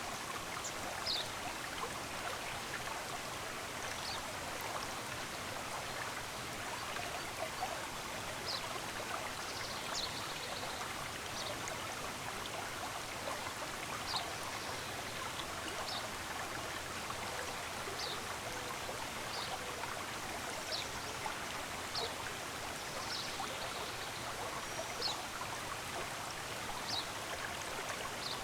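Stream running steadily, with birds chirping in short high notes every second or two.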